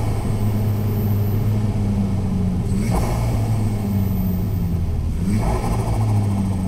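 Turbocharged car engine pulling under power, heard from inside the cabin. The engine note breaks twice, about three and five seconds in, each time with a brief rush of air noise.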